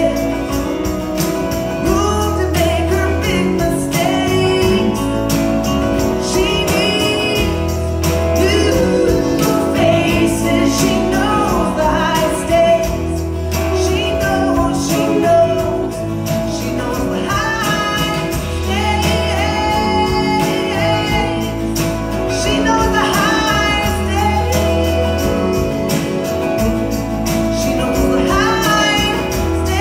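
Live country band (electric guitars, bass guitar and drum kit) playing a mid-tempo song, with a woman singing the lead in phrases every few seconds over a steady bass line.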